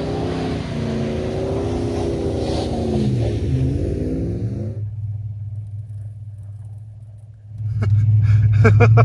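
Pickup truck's V8 revving up and down while spinning donuts in snow, over the hiss of spinning tyres throwing snow, fading as the truck slides away. About seven and a half seconds in, a sudden louder steady low engine drone with rattles takes over, from a vehicle driving.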